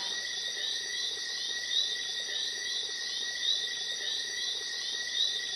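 Tropical rain-forest night chorus of insects and frogs: steady high-pitched trilling with short chirps repeating two or three times a second.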